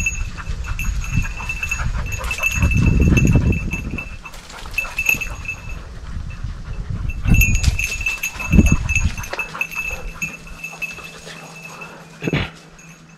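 Close, heavy panting breaths with footfalls on a dirt forest trail. The breathing is loudest about three seconds in and again around eight to nine seconds in.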